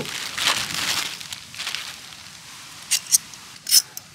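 Tent pole sections clattering against each other as a folded bundle is pulled apart, then a few sharp clicks about three seconds in as the sections snap together into a pole.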